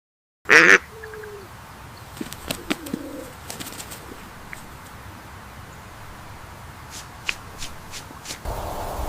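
A bird gives one loud, short call about half a second in, then softer calls and a few faint chirps and clicks over a steady outdoor hiss. Near the end, a louder wind-like rumble comes in.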